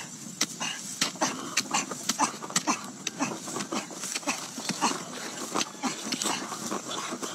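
A hoe chopping into dry earth again and again: irregular knocks, several a second, with short animal calls mixed in.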